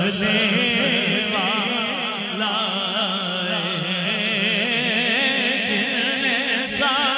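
A man singing a naat in a long, wordless melismatic passage, his held notes wavering with heavy vibrato over a steady low drone.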